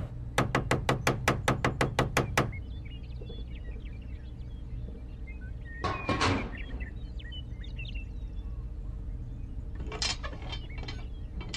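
A small hammer tapping a model traffic-light post into the ground: about a dozen quick light knocks in the first two seconds, then one louder knock about six seconds in and a few small clicks near the end as toy pieces are set in place.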